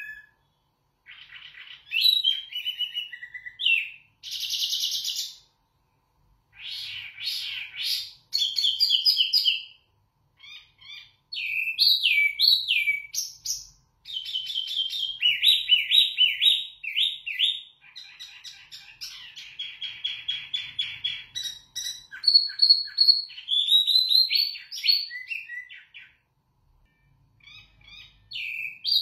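Caged wambi mini songbird singing: varied phrases of whistles, fast trills and repeated chirps, broken by short pauses.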